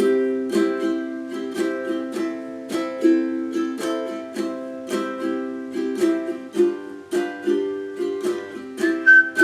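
Ukulele strummed in a steady rhythm, playing chords. Near the end, a whistled melody comes in over it, starting on a high note and stepping down.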